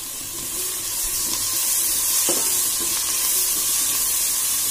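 Sliced onions, mint and coriander sizzling as they sauté in hot oil in a large metal pot, stirred with a metal spatula. The sizzle swells a little in the first second, with one clink of metal near the middle.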